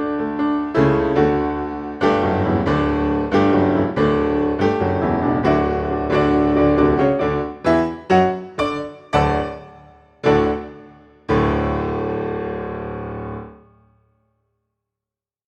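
Background piano music: a run of struck notes slows into a few separate notes, then a final held chord about eleven seconds in that rings out and stops.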